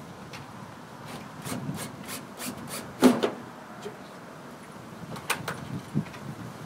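Hand-handling noises from the fluorescent light fixture inside a kiosk's sign panel: a run of short scraping or rubbing strokes, a sharp knock about three seconds in, then a few lighter clicks and knocks near the end.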